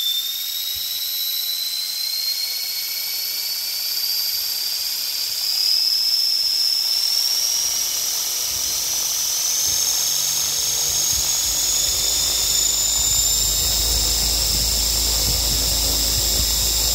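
Small brushless motor in a converted toy RC helicopter driving the main rotor through a gear. It makes a high whine that climbs steadily in pitch as the throttle is pushed up, and a low rumble builds underneath it in the second half.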